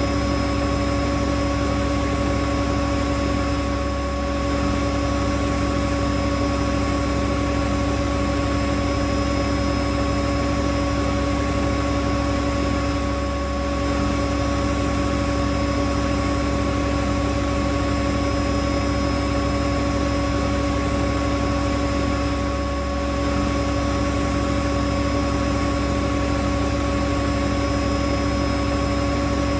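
Whirlpool Indiana 1400 front-loading washing machine on a high-speed spin, a steady loud motor whine over a constant rushing hum. The sound eases slightly for a moment about every nine seconds.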